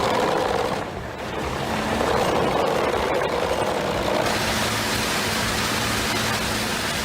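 Large wood chipper running, a steady mechanical din of engine and shredding, with a brief dip about a second in.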